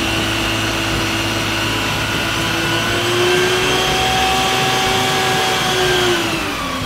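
Isuzu water cannon tanker truck's engine and pump running hard while its roof monitor sprays a long jet of water: a steady whine over a noisy hiss, falling in pitch near the end as the revs drop.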